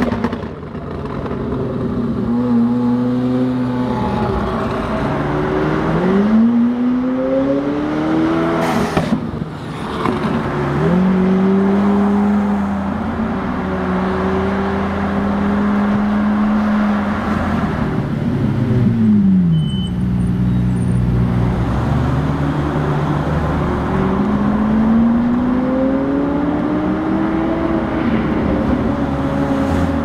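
McLaren 720S twin-turbo 4.0-litre V8 running, its revs rising and falling several times, held steady for a few seconds in the middle and climbing again near the end. A single short sharp crack about nine seconds in.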